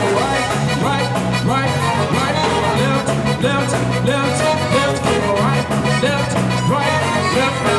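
Live zydeco band playing an instrumental stretch of a dance tune, without vocals.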